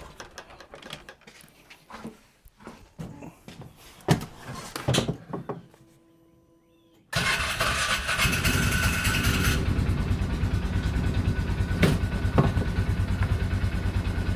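Scattered knocks and clatter, then about seven seconds in a side-by-side UTV's engine starts and runs steadily with a fast, even pulse.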